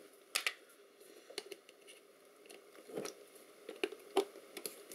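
Small screwdriver undoing the screws of a metal cover plate: scattered faint clicks and ticks of the tool on the screw heads.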